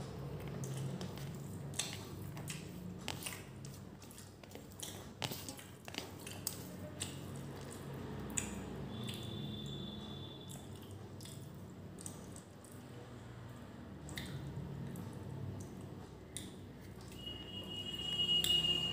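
Wet chewing and mouth clicks of someone eating rice and beef curry by hand, with fingers squishing and gathering the rice on a steel plate, in many small scattered clicks and smacks. A brief high steady tone sounds about nine seconds in, and a louder one near the end.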